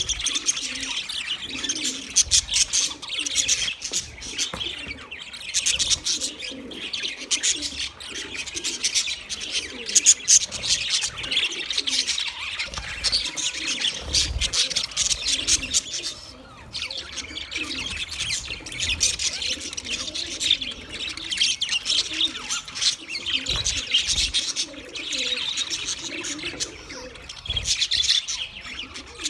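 A flock of budgerigars chirping and chattering continuously, a dense stream of quick high chirps over softer warbling, with a brief lull about halfway through.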